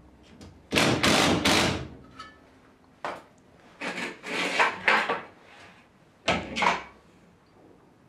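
Cordless drill driving screws to fix a steel radiator bracket to the wall, in several short bursts: three close together about a second in, a cluster around the middle, and two more near the end.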